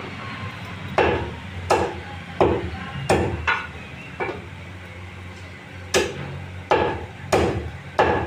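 Meat cleaver chopping chicken on a wooden log chopping block: sharp knocks, about one every 0.7 seconds, in two runs with a pause of about two seconds between them.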